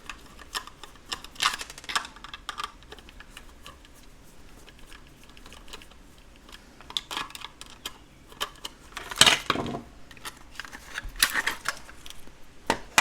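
Irregular clicks and light clatter of small plastic and metal parts as the mechanism of a Copal 227 flip clock is worked out of its case, with a few louder knocks about 9 and 11 seconds in.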